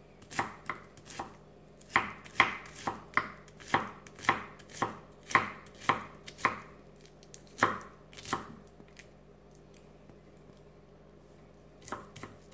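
Santoku knife chopping red onion on an end-grain wooden cutting board: sharp knocks of the blade on the wood about twice a second. The chopping stops for a few seconds about two-thirds of the way through and starts again near the end.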